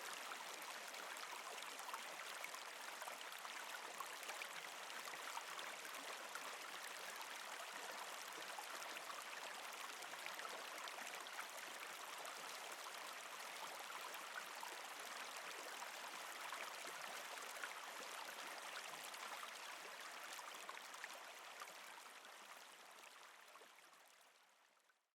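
Mountain stream babbling steadily, with many small splashes in its rushing; it fades out over the last few seconds.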